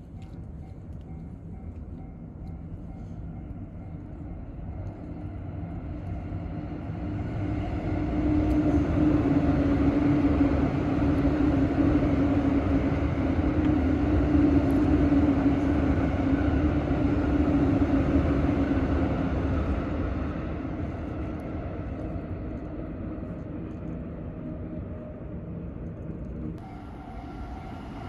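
JR Yokosuka Line electric train running past a railway level crossing. It grows louder over the first several seconds, is loudest for about twelve seconds as the cars go by, then fades. The crossing's warning bell rings steadily, clearest before the train arrives and after it has passed.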